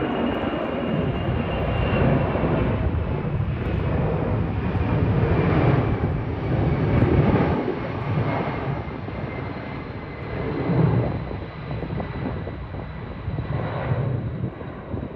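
C-17 Globemaster III's four turbofan engines at climb power just after takeoff: a loud, rough jet rumble that swells and dips, with a faint whine that falls slowly in pitch, easing off near the end as the aircraft moves away.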